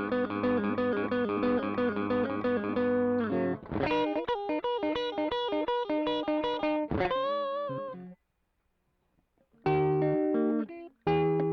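Electric guitar riff played back from a looper through a Caline 'British Sound' overdrive pedal. Fast repeated notes give way about three and a half seconds in to a busier riff, which stops short around eight seconds in; after a pause of over a second the playing starts again.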